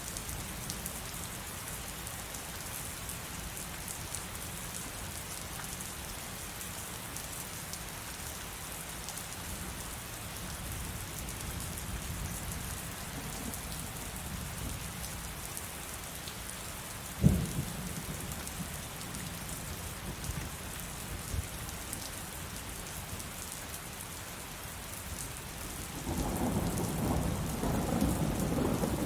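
Heavy rain falling steadily, with one sharp thunderclap about two-thirds of the way through and a louder rolling rumble of thunder setting in near the end.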